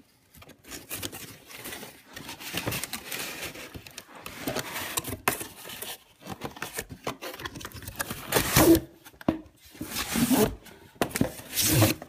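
Cardboard box and its inner cardboard inserts rustling, scraping and flexing as hands rummage through the packaging, with several louder scrapes in the second half.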